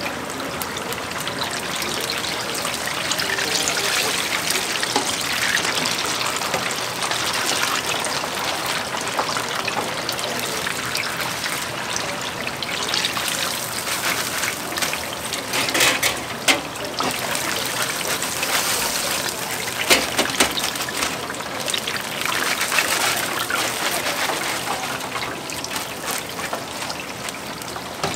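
Battered chili peppers deep-frying in hot oil: a steady sizzle, with a few sharp clinks about halfway through.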